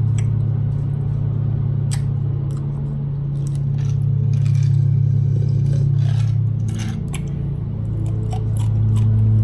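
A steady low hum throughout, with scattered short clicks and mouth sounds as a man drinks from a glass of ice water, the drinking about halfway through.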